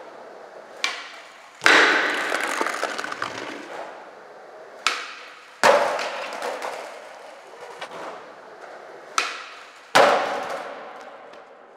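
Skateboard jumped down a set of concrete stairs three times: each time a sharp pop of the tail is followed about a second later by a loud slam of the board landing at the bottom, ringing on and fading in the covered hall. One attempt ends in a bail, the board clattering away on the concrete floor.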